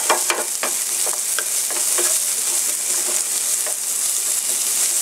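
Sliced onion, green chilli, garlic and ginger sizzling in hot oil in a non-stick pan, with a steady hiss, while a wooden spatula stirs and tosses them, scraping and tapping the pan at irregular moments.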